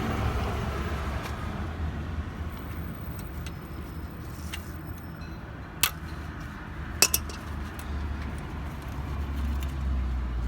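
Metal tools clinking against a Brembo brake caliper while its pad retaining pins are worked out: scattered light ticks and two sharp, ringing metal clicks, the second doubled, about six and seven seconds in, over a steady low rumble.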